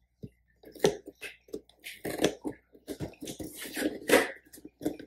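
Cardboard box being opened by hand: irregular tearing, scraping and rustling of the cardboard and its flaps in quick uneven bursts.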